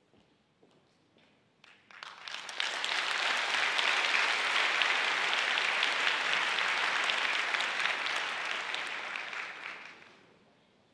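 Audience applause that starts about two seconds in, holds steady, and dies away near the end, greeting the conductor as she walks on and bows.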